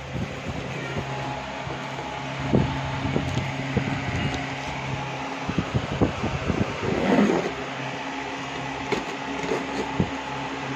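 Electric table fan running steadily under the rustling and scraping of a plastic-wrapped cardboard shipping box being handled. The loudest scrape comes about seven seconds in.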